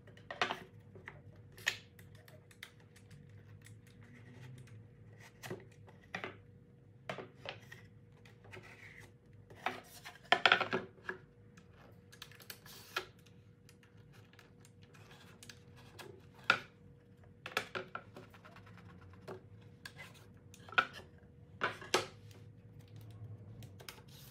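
Wooden panel and wooden rail clamp being handled on a workbench: scattered light knocks, taps and clicks, with a louder cluster about ten seconds in. A faint steady hum runs underneath.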